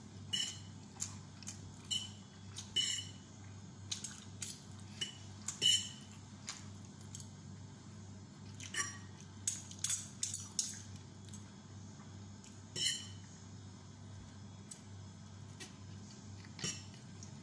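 Metal forks clinking and scraping against a ceramic plate while a plate of Indomie noodles is eaten, in irregular sharp clicks, some in quick clusters. A low steady hum runs underneath.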